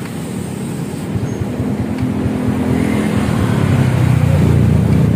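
Honda Vario scooter's single-cylinder four-stroke engine, just started and running at idle through an aftermarket racing exhaust, growing louder about three seconds in.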